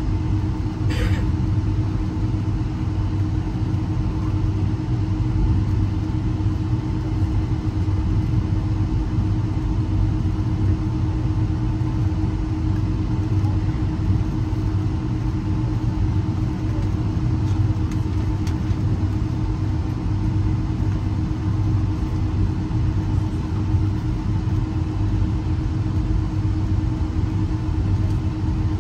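Cabin noise inside a Boeing 757 on the ground with its jet engines at idle: a steady low rumble with a constant hum over it.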